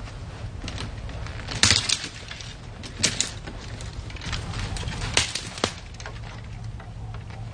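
Dry twigs and brush crackling and snapping underfoot and against the body as someone pushes through thick undergrowth, in a handful of sharp bursts over a steady low hum.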